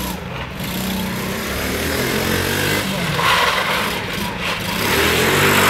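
ATV (quad bike) engine running and revving up and down as it is ridden, with a rush of noise about three seconds in and again near the end.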